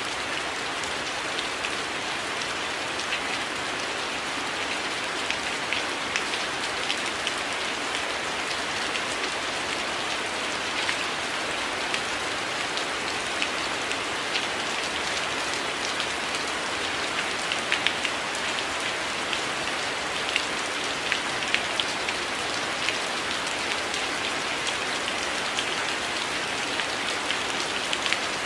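Steady rain falling, with many individual drops ticking sharply against a window pane.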